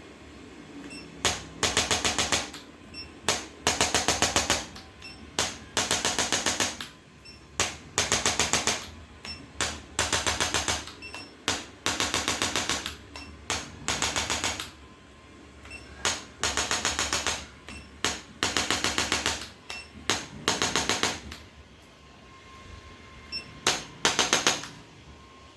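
A handheld percussion device firing a rapid train of clicks in bursts of about a second, about a dozen times, with short pauses between bursts.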